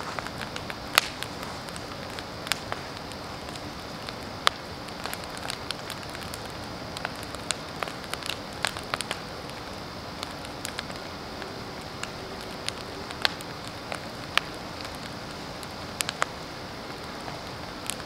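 Large wood bonfire burning: a steady hiss of flames with irregular sharp crackles and pops from the burning branches, sparks flying.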